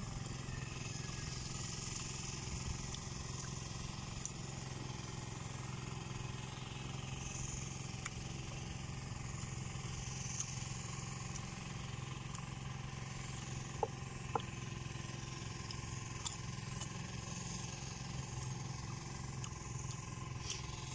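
A steady low hum with an even outdoor hiss, much like a distant engine running. A few faint short crunches or clicks of raw jicama being bitten and chewed come through it, two of them close together past the middle.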